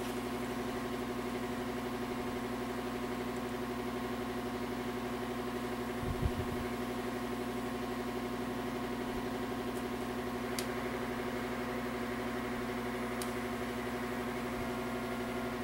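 A steady mechanical hum with several even tones from a machine running in the shop, with a low thump about six seconds in and a few light clicks from parts being handled near the end.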